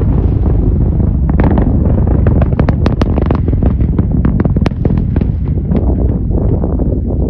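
Distant Falcon 9 rocket engine: a heavy low rumble with rapid, irregular crackling pops, densest from about a second in until near the end.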